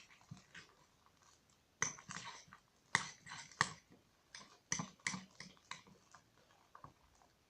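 Freshly firmed blue shaving-foam slime being squeezed and worked, giving irregular sticky squelches and clicks.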